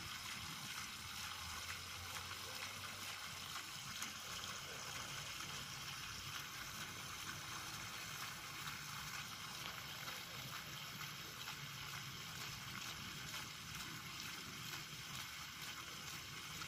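Water running steadily out of a rusty pipe outlet and splashing onto grass.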